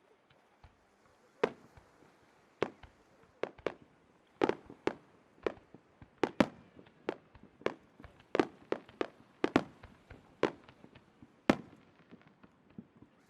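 Fireworks shells bursting: a string of sharp bangs at uneven intervals, starting about a second and a half in.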